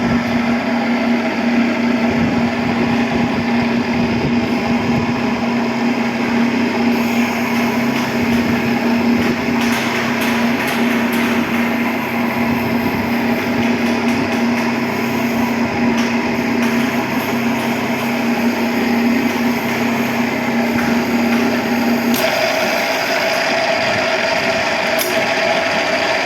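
Electric pipe-threading machine running steadily while cutting a thread on an iron pipe. About three-quarters of the way through, its low steady hum gives way to a higher-pitched tone.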